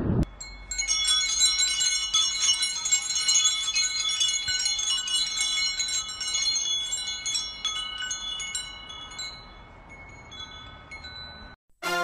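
Metal chimes jingling: many high ringing notes struck in quick succession and overlapping, thinning out about nine seconds in and stopping just before the end.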